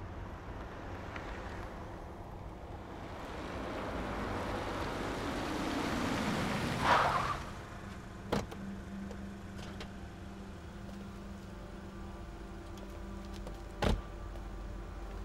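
A car drives up on wet pavement, its noise building to a peak about seven seconds in as it pulls to a stop, then idles with a steady low hum. Two sharp knocks come about eight and fourteen seconds in.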